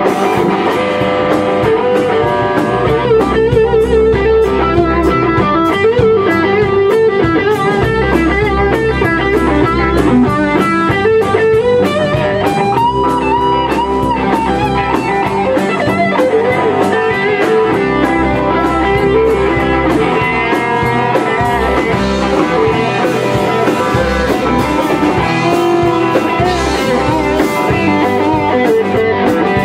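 Rock band playing live in a small rehearsal room: electric guitars over a drum kit in an instrumental stretch, with a guitar line moving up and down in pitch.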